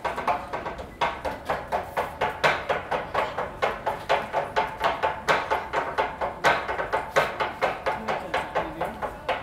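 Tontoko-ame candy cutting (ame-kiri): kitchen knives chopping a rope of hard candy on a wooden cutting board in a fast, steady rhythm of about five knocks a second, with louder accented strokes mixed in.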